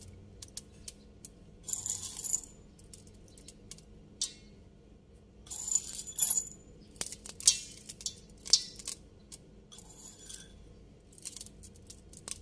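Chocolate chips being scattered over cake batter in a rice cooker pot: light clicking and rattling in about five short bursts, with single clicks in between.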